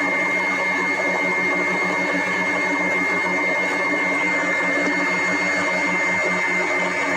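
ProBlend 5 countertop blender running steadily, blending milk and frozen blueberries into a smoothie: an even motor hum with a constant high whine.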